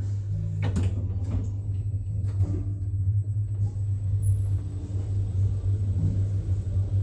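Glass cylindrical passenger lift travelling down between floors, its drive giving a steady low hum, with a few light clicks in the first couple of seconds.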